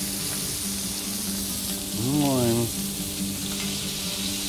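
Beef tenderloin steaks sizzling steadily as they fry in a hot pan of oil and browned butter.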